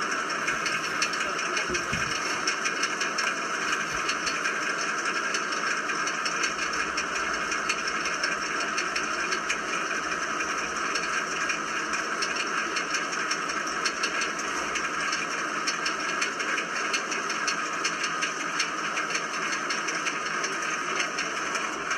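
Land Rover Discovery 2's Rover V8 engine running steadily with a fast, even knocking rattle throughout. It is a bad sound that the owners fear means the engine has reached the end of its life.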